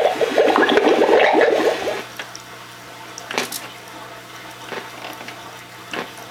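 Gemmy witch cauldron prop playing its bubbling, gurgling brew sound effect, which stops about two seconds in. What remains is the prop's low steady hum with a couple of faint clicks.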